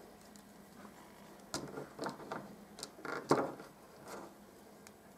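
Plastic joints of an S.H.Figuarts Body-Kun posable figure being worked by hand: a few soft clicks and rubs as the limbs are bent into a pose, the firmest a little past three seconds in.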